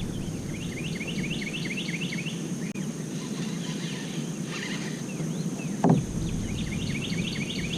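A songbird singing two runs of quick repeated chirps, about four or five a second, over a low steady rumble. A single knock sounds about six seconds in.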